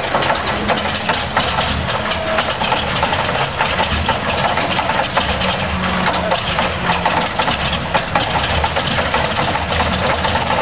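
Pratt & Whitney R-1830 Twin Wasp fourteen-cylinder radial engine from a B-24 Liberator running steadily, its propeller turning.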